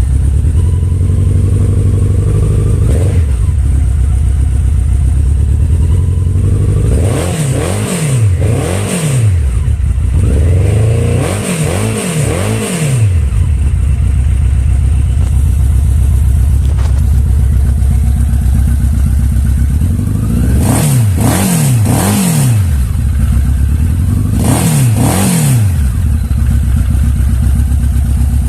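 Honda CB1300 inline-four motorcycle engine, breathing through a modified stock exhaust, idling with sharp throttle blips. The blips come in four quick clusters of two or three, each rev rising and dropping straight back to idle.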